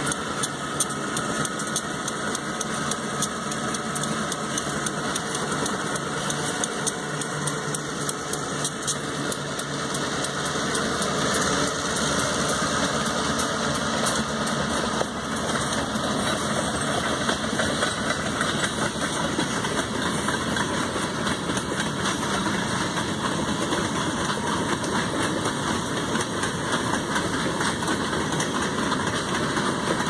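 Freight train passing close by: a diesel locomotive engine running, then the steady rumble and rapid clicking of steel wheels on the rails as the freight cars roll past. It gets a little louder about ten seconds in.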